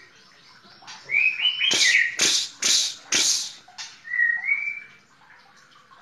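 White-rumped shama (murai batu) singing: a few short whistled glides, then four loud, harsh notes about half a second apart, and one more whistled phrase about four seconds in.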